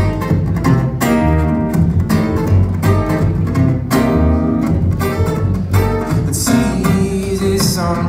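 Two acoustic guitars and an upright double bass playing together, with the bass keeping a steady repeating pulse under the guitars.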